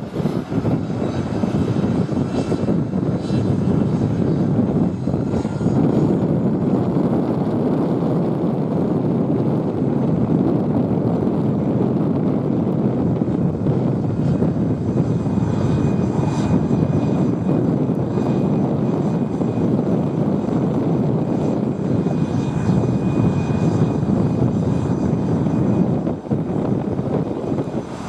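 Aero L-39 Albatros jet trainers taxiing, their AI-25TL turbofans running at low power: a steady engine rush with a faint high whine above it.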